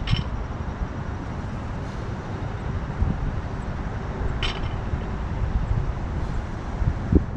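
Steady low outdoor rumble of distant road traffic, with two brief sharp clicks, one at the start and one about halfway, and a dull thump near the end.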